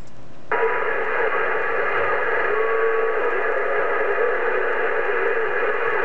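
President HR2510 radio's speaker hissing with the static of an incoming signal, which opens about half a second in and runs steady, with a faint thin whistle under the hiss.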